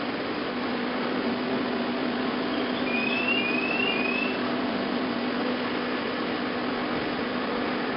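Concrete block production line machinery running with a steady hum and a low drone. About three seconds in come three short rising chirps in quick succession.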